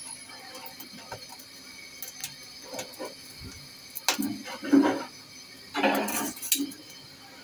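Broiler chicken feet crackling and popping with sharp ticks as they roast in a gas burner's flame, the skin splitting as it nears done. About four and again six seconds in come two louder scraping rattles of metal tongs against the stove grate.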